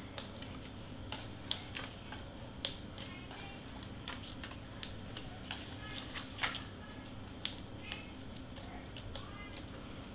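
Scattered sharp clicks and taps of cardstock pieces and foam tape being handled and pressed down on a craft table, over a low steady hum.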